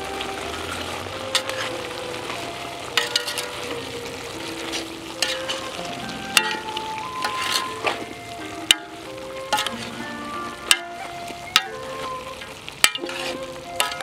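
Metal spatula stirring vegetables in a large aluminium pot, knocking and scraping against the pot about once a second over a steady sizzle.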